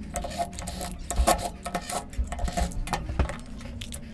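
Small sharp clicks, knocks and light metallic clatter of screws and casing parts being handled as a water pump's housing is opened up, irregular, with a faint low hum underneath in the first half.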